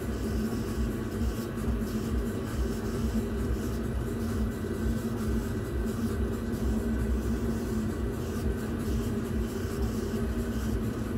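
Laser engraver running, with a steady low mechanical hum as its head sweeps back and forth engraving.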